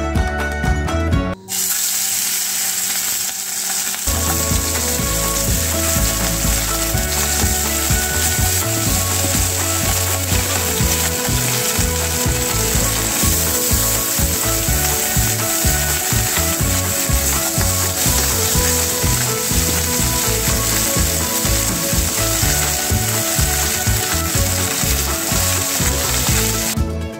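Small silver fish frying in hot mustard oil in a pan: a loud, steady sizzle that starts suddenly about a second and a half in, as the fish go into the oil.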